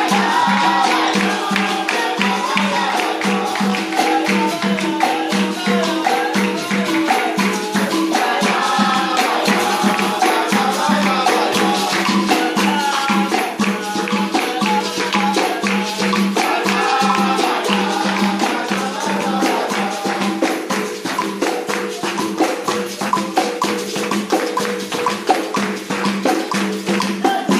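Capoeira music: berimbaus led by the deep gunga droning under a pandeiro's jingling beat, with voices singing over it. The music cuts off at the very end.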